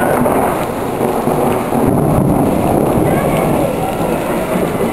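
Heavy downpour with running water: a loud, steady wash of noise.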